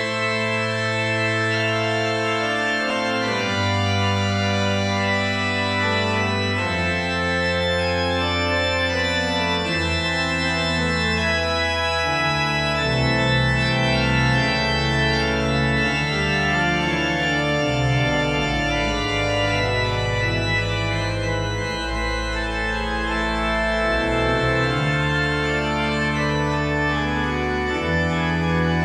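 Church organ playing slow sustained chords that change every second or two, with deep bass notes held beneath them.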